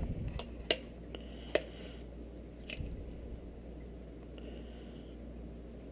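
Egg shell tapped against a knife blade and cracked open over a stainless steel bowl: a few sharp taps in the first three seconds, the loudest about a second and a half in, then quiet.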